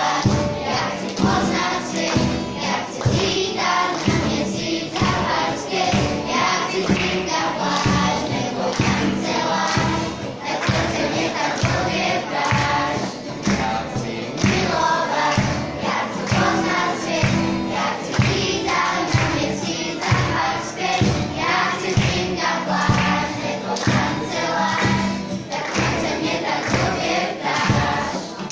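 Children's choir singing a song together, over an accompaniment with a steady beat.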